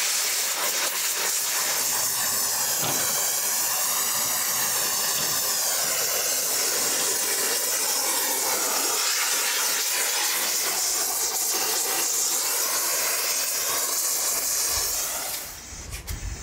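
Gas blowtorch flame hissing steadily as it singes the hair and skin of beef hooves and legs. The hiss cuts off shortly before the end.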